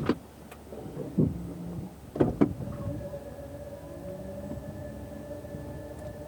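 Inside a Toyota RAV4 hybrid's cabin: a few sharp clunks and knocks in the first two and a half seconds, then a steady in-car hum with a constant tone.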